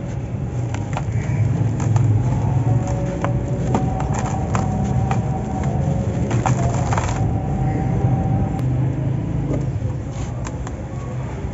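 Dry sand-cement lumps crushed by hand and crumbled into a plastic tub, the falling grit pattering and clicking onto the pile. A steady low rumble runs underneath.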